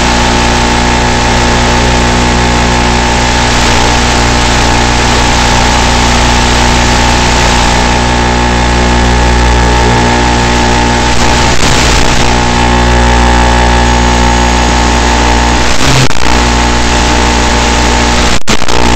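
Steady drone of the Skyhunter Nano's brushless electric motor and 7x4 propeller at low throttle, with wind hiss, heard through the plane's onboard camera audio. Brief crackles near the end.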